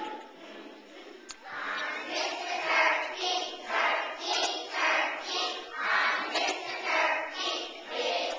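Children's choir singing together, coming in about a second and a half in with a strong, even beat of about two syllables a second.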